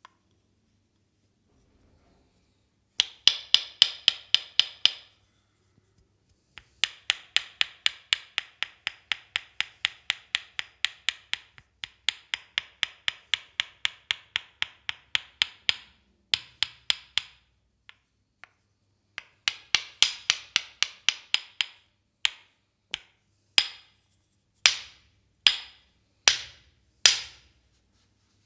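Percussive massage tapping on the leg: sharp, rapid strikes about five a second in bursts of a few seconds, then slower single strikes near the end.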